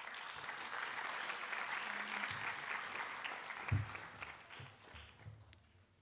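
Audience applauding, starting at once and dying away over the last two seconds, with a single low thump a little over halfway through.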